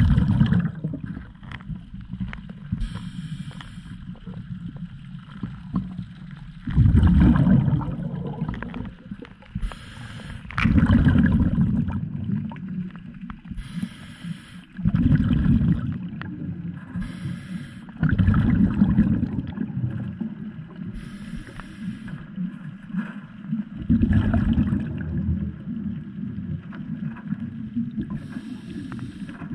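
A scuba diver breathing through a regulator underwater: short hissing inhalations alternate with loud bursts of rumbling, gurgling exhaust bubbles, about every three to four seconds.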